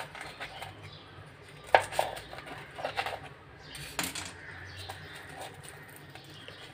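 Knife cutting through a crisp deep-fried bread pakora on a plate. There are a few sharp clicks and crunches as the blade goes through the fried gram-flour crust and taps the plate.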